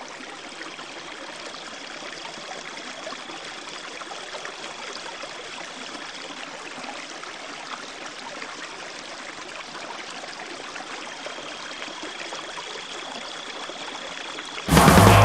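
Steady trickle of swimming-pool water, an even watery hiss with a faint thin high tone heard twice along with it. Loud rock music cuts in near the end.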